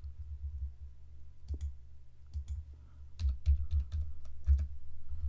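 Scattered clicks of a computer mouse and keyboard: a few around one and a half to two and a half seconds in, then a busier run from about three seconds in. A steady low hum runs underneath.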